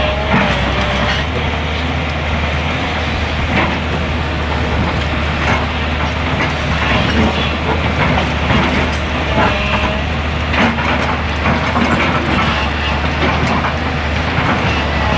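Hydraulic excavator's diesel engine running steadily, with scattered metallic knocks and clanks and a few short squeals over it.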